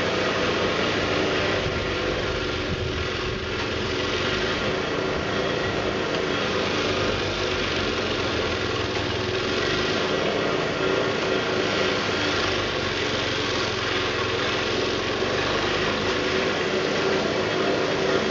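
Two-stage snow blower's engine running steadily while it throws snow.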